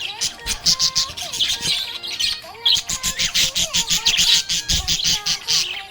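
Budgerigar chirping and chattering in rapid bursts of short high chirps over background music.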